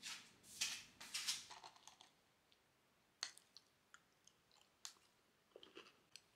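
Quiet handling sounds: a few soft swishes in the first two seconds, then light scattered clicks and crunches as a wooden spoon digs into granola and yogurt in a glass cup.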